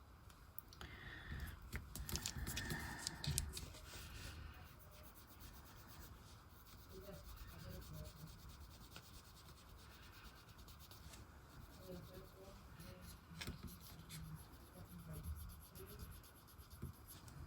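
Faint rubbing and scraping from hands-on nail work, with a few small clicks. It is busiest over the first few seconds, then settles into quieter rubbing.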